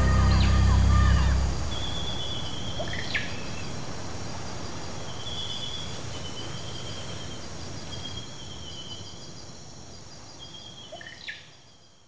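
Music ends about a second and a half in, leaving a rainforest soundscape: birds calling in short repeated trills and a few quick whistles over a steady insect hum. The whole bed fades out slowly.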